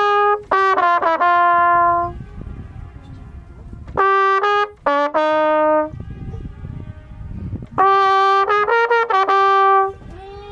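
A valved brass horn played from the boat towards the Echowand rock face: short melodic phrases of clear, held notes, separated by pauses for the echo off the cliff to answer. A new long note begins near the end.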